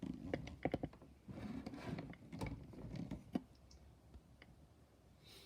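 Light clicks and knocks of a torque wrench and torque adapter being handled: a string of short sharp taps over the first three and a half seconds.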